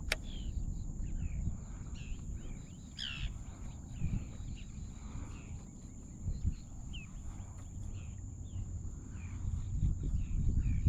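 Birds chirping in short, scattered calls over a steady low rumble and a thin, steady high-pitched whine, with one sharp click at the very start.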